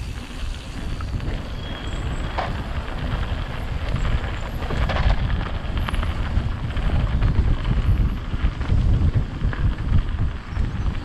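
Mountain bike descending a dirt forest trail at speed: wind buffeting the action camera's microphone and a low tyre rumble, with short rattles and knocks as the bike goes over bumps. It gets louder from about four seconds in.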